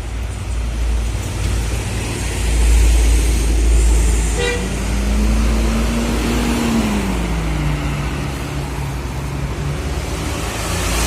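Toll-road traffic going by: a passing vehicle's engine tone rises a little, then drops in pitch as it goes past, over a steady low rumble. A short horn toot sounds about four and a half seconds in.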